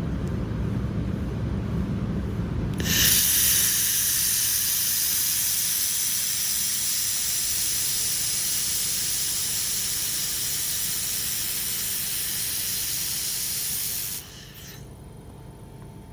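Handheld fiber laser welding head hissing steadily as compressed-air shielding gas blows through its nozzle during a weld; the hiss starts abruptly about three seconds in and cuts off suddenly near the end. A low machinery rumble runs underneath, more prominent before the hiss starts.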